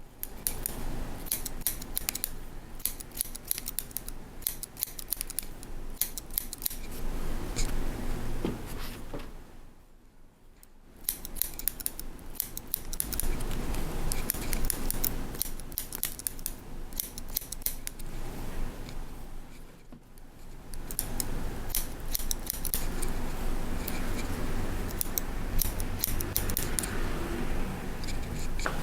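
Hairdressing scissors snipping through a man's short hair in quick runs of cuts, with two brief pauses, about a third and two thirds of the way through.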